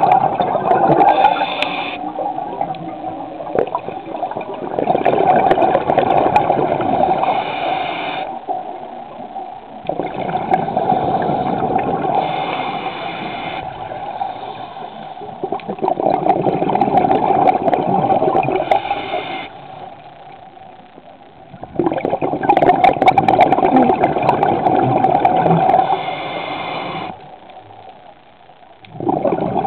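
Muffled rushing and gurgling of water around a camera held underwater, coming in surges of a few seconds with short quieter lulls.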